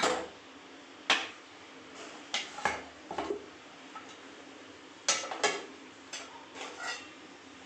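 Aluminium pressure cooker being opened: its whistle weight lifted off the vent and the lid worked free and lifted off, with a string of sharp metal clanks and knocks.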